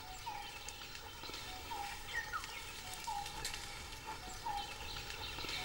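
A bird calling over and over: short, slightly falling notes about once a second, over a steady background hiss.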